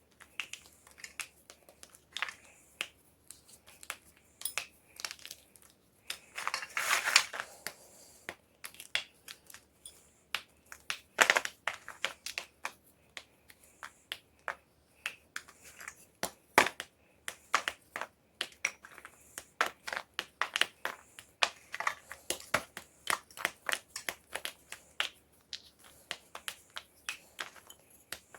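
Homemade gym chalk being crushed, a rapid series of dry, sharp crunches and cracks, with a denser crumbling burst about seven seconds in.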